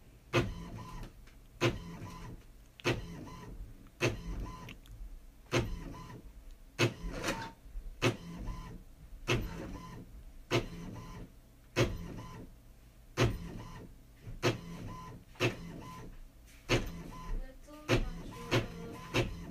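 Inkjet printer printing a page: the print-head carriage shuttles back and forth with a whir, clacking about once every second and a quarter at each pass, the clacks coming closer together near the end.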